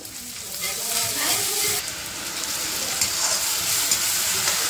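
Masala sizzling as it fries in a hot pan, with a steady hiss that gets louder about half a second in.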